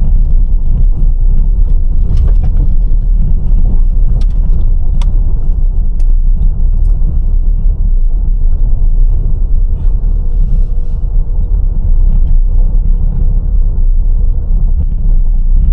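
Loud, steady low rumble throughout, with no speech, such as road noise heard inside a moving vehicle or wind buffeting the microphone.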